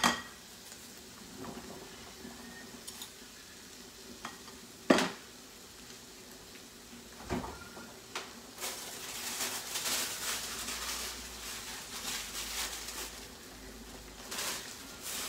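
Pots on a stovetop bubbling and sizzling, a pot of boiling pasta water beside a pan of simmering seafood tomato sauce, louder through the second half. A few sharp knocks of metal tongs and pots, the loudest about five seconds in.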